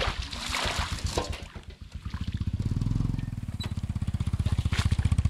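Shallow muddy water splashing and sloshing as hands grope through it for fish. From about two seconds in, a small engine's low, rapid, even putter starts and runs on, getting louder.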